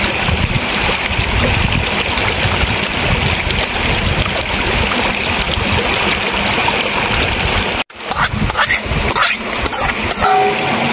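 A stream running steadily. After a sudden break about eight seconds in, a metal spoon scraping and clinking in a metal pan over a wood fire.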